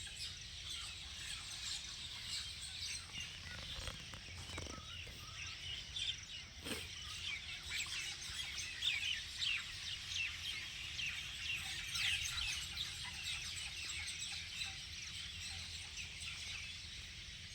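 Many small birds chirping and twittering at once, short quick notes overlapping throughout, over a low steady background rumble.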